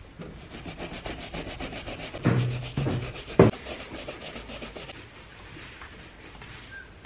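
A stiff cleaning brush scrubbing the red rubber sole of a Christian Louboutin sneaker in fast back-and-forth strokes, about seven a second, stopping about five seconds in. Two louder knocks come partway through.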